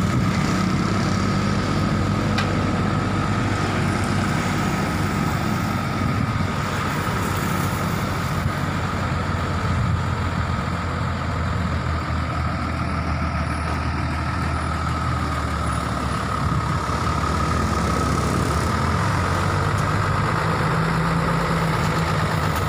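Hino FG 235 Ti crane truck's diesel engine running steadily, its note shifting slightly a few times, with a steady high whine over it.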